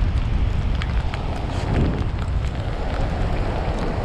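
Strong wind buffeting the microphone over the wash of surf breaking on a beach, with scattered light ticks.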